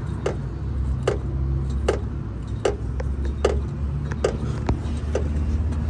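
Car suspension knocking in a steady rhythm, about once every 0.8 seconds, over a steady low hum, as a suspension-noise testing tool works it. Each knock rings briefly. The noise is traced to play in the rear suspension arm.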